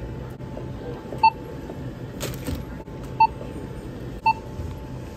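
Self-checkout barcode scanner beeping as items are scanned: three short, high beeps a second or two apart. A brief noisy sound comes between the first and second beeps.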